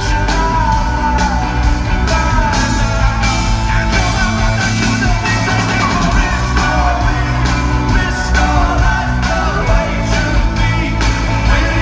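Live rock performance: a male singer over a full band with steady bass and drums, loud throughout.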